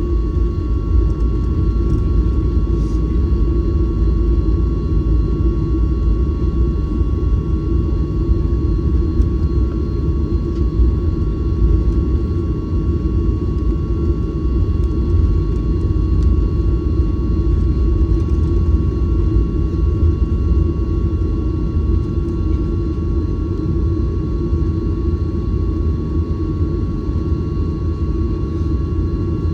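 Boeing 737-900ER's CFM56 turbofan engines running at steady power, heard inside the cabin: a loud deep rumble with a steady high whine on top.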